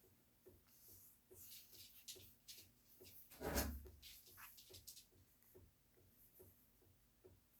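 Faint rustling and handling noises, with one louder rustle and soft thud about three and a half seconds in, over a steady soft ticking about twice a second.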